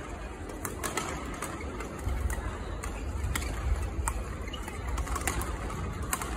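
Badminton rackets striking shuttlecocks in a warm-up drill: sharp pops at irregular intervals, several in a few seconds, over a low hall rumble.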